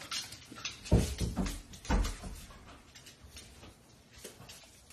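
Two dull thumps about a second apart, followed by faint scattered clicks and shuffling in a small tiled room.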